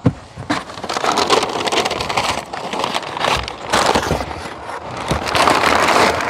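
Brown kraft packing paper pulled from a cardboard box and crumpled, a continuous loud rustling and crackling, with a sharp knock against the box right at the start.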